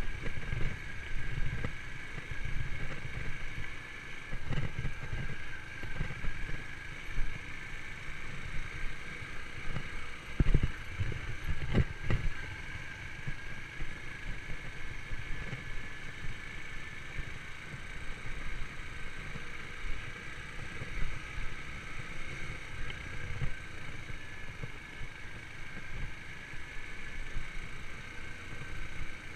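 Yamaha YBR125's single-cylinder four-stroke engine running steadily while under way, with uneven wind rumble on the microphone. A couple of sharp knocks come about a third of the way in.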